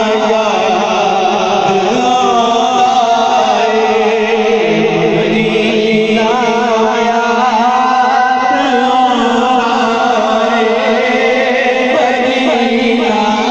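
Men chanting a naat (Urdu devotional poem) together in long, wavering melodic lines, amplified through a loudspeaker system.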